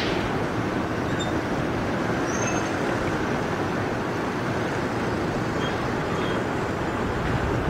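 Steady low rumble and rushing noise of a large container ship passing close by, with water washing along its hull.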